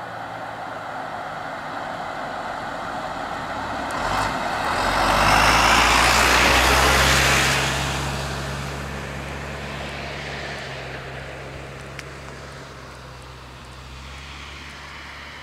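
A motor vehicle passing close by: road and engine noise swells to its loudest about six seconds in, then fades, and a low engine hum carries on after it.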